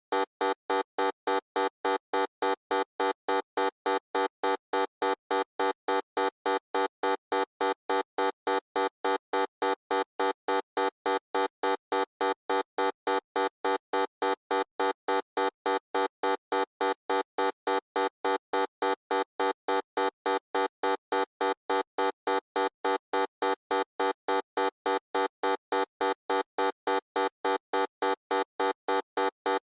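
Loud electronic buzzer sounding in rapid, even pulses, about three a second, each a buzzy tone with many overtones.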